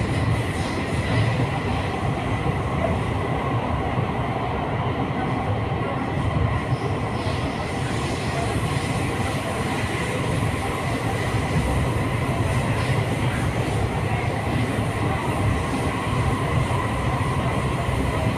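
MRT Putrajaya Line metro train running, heard from inside the carriage: a steady rumble of wheels on the rails with a thin, steady high whine over it.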